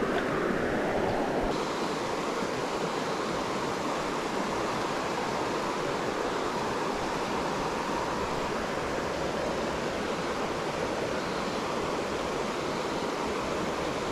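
Shallow stream rushing steadily over rocks in a riffle.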